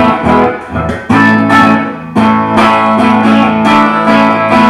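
Rickenbacker 420 electric guitar strummed in chords through a Fender Deluxe Reverb Tone Master amp, a clean Fender-style tone with no pedal engaged. A brief pause about a second in, then steadily repeated strummed chords that ring on.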